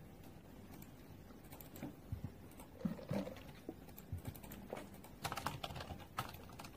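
Light, irregular clicks and taps of someone eating, with utensils knocking on a bowl, growing denser about five seconds in.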